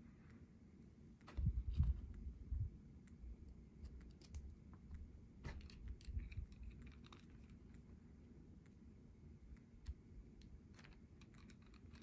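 Faint, scattered light clicks and taps of a small metal motor plate and plastic gearbox parts being handled in the fingers, with a few dull bumps about a second and a half in.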